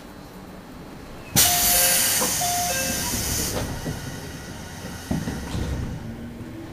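JR Central 211 series electric train's air brakes releasing: a sudden loud hiss of compressed air about a second and a half in, fading over several seconds. A thud follows, and near the end a low hum begins to rise as the train starts to pull away.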